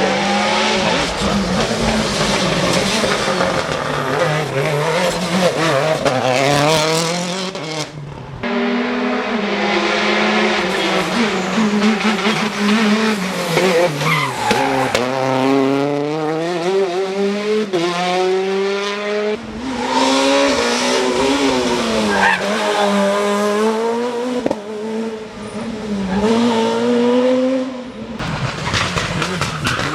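Rally cars driven hard on a special stage, engines revving up and dropping back over and over through gear changes and braking. The sound breaks off abruptly about 8 seconds in, about 19 seconds in and near the end, each time taking up another car.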